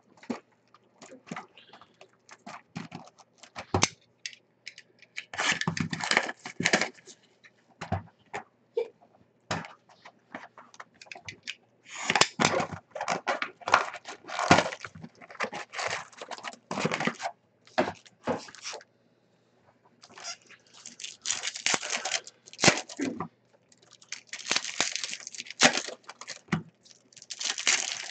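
Packs of trading cards being torn open and the cards handled and shuffled: irregular crinkling of wrappers and rustling with small clicks, broken by short pauses.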